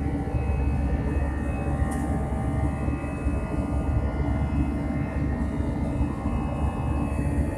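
Airbus A320 jet engines running at high thrust during takeoff: a steady low rumble with several high whining tones over it.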